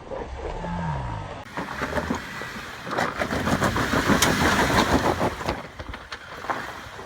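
2016 Jeep Wrangler Unlimited Rubicon's 3.6-litre V6 revs briefly. Then tyres crunch and pop over loose rock and dirt as it crawls along a trail, with a dense crackle that is loudest in the middle and fades near the end.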